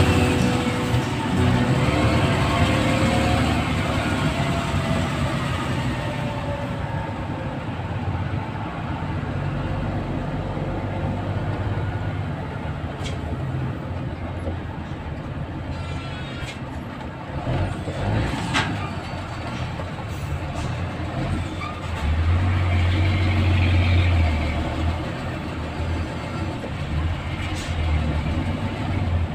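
Low engine rumble and road noise heard from inside a vehicle crawling in heavy traffic, the rumble growing louder for a few seconds about three-quarters through. Background music fades out over the first few seconds.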